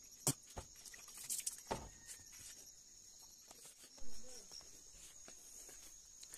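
Steady high insect chirring from the surrounding vegetation, with a few soft thumps and rustles of footsteps and handling, the loudest about four seconds in.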